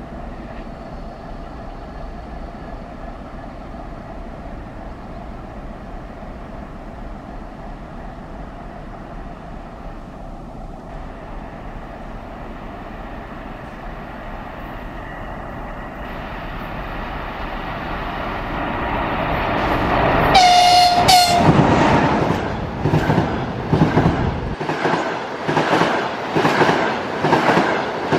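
EP20 electric locomotive hauling a double-deck passenger train: a steady hum and rumble growing louder as it approaches, one short horn blast about twenty seconds in, then the wheels of the passing coaches clattering rhythmically over the rail joints.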